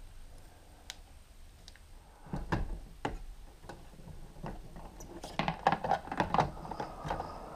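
Heavy electrical cable being handled and worked into a metal breaker panel: scattered clicks, rubs and knocks, with a busier patch about two seconds in and a denser run of clicking and rustling about five seconds in.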